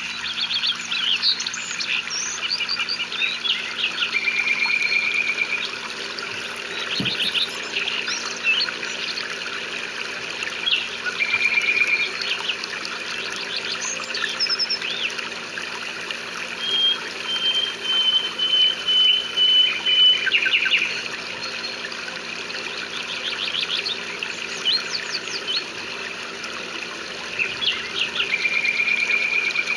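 Several birds chirping and trilling over a steady hiss of rain, with short rapid chirps throughout and a few level trills that each last about a second or more.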